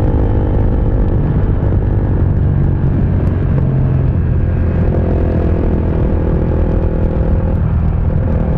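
KTM RC single-cylinder sport bike cruising at steady speed, its engine note mixed with a loud, steady wind and road rumble on the bike-mounted camera's microphone.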